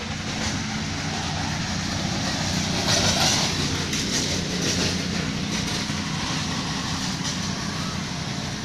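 An engine running steadily, a continuous low drone, with a louder stretch of hiss about three seconds in.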